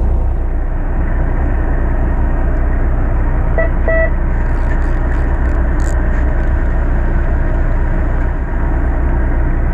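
Fishing boat's engine running steadily under way, a loud even drone. A short beep sounds about four seconds in.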